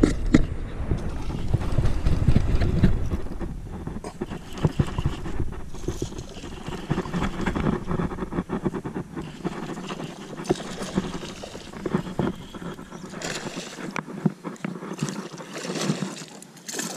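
Wind buffeting the microphone for the first few seconds, then a spinning fishing reel being cranked with a run of quick light clicks, over water lapping against a plastic kayak.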